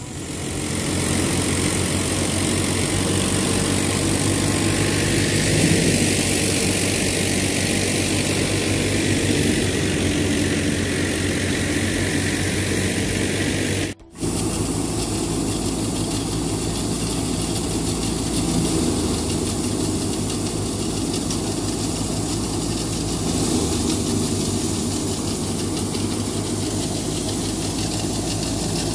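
Tractor-driven wheat thresher running steadily: the tractor engine's hum together with the threshing machinery and a hiss of chaff. The sound cuts out for a moment about halfway through, then the machine runs on.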